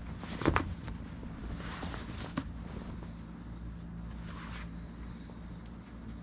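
A fleece blanket being handled: a sharp flap as it is shaken out about half a second in, then soft rustling as it is folded. A steady low hum runs underneath.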